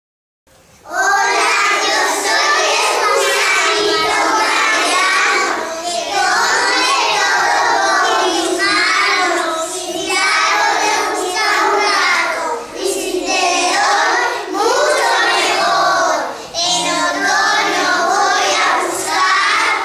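Young children singing a song, starting about a second in and running on with only brief breaths between phrases.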